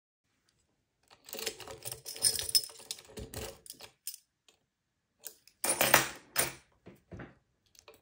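Metal-on-metal clicking and rattling as a key and then lock-picking tools are worked in the keyway of a Versa six-pin euro cylinder, the key rattling over the pin stacks. It comes in two spells of quick clicks, the second, about six seconds in, the loudest.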